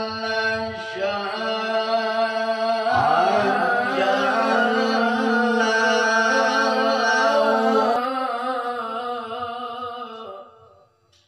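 A man's voice chanting in Arabic in the long, melismatic held-note style of a qori's recitation. It sustains ornamented notes, then trails off and fades out about ten seconds in.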